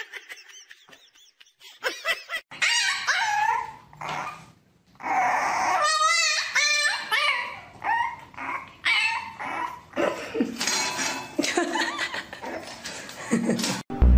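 Dogs crying out in a series of high whines and yelps whose pitch wavers up and down, with a brief pause about four and a half seconds in.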